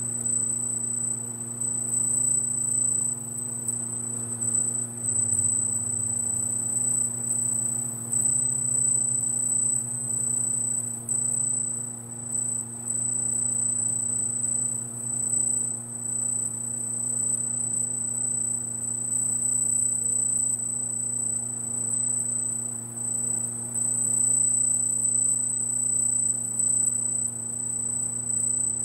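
Laser marking machine engraving text into a polished metal panel: a steady high-pitched whine over a low electrical hum.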